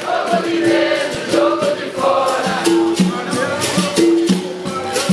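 Capoeira roda music: berimbaus playing a repeating two-note pattern with the rattle of their caxixi shakers, while a group sings together over them.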